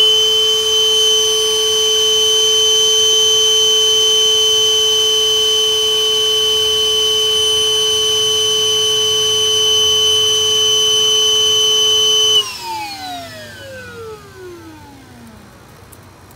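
Vacuum hooked by its hose to a clogged AC condensate drain line to suck it clear, its motor running with a steady high whine. About twelve seconds in it is switched off, and the whine falls in pitch as the motor winds down over a few seconds.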